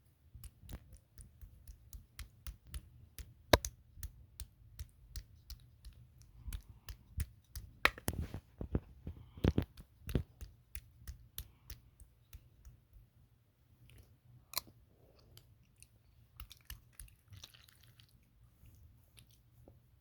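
A person chewing mac and cheese close to the microphone. Many sharp clicks come about two or three a second, then thin out about halfway through.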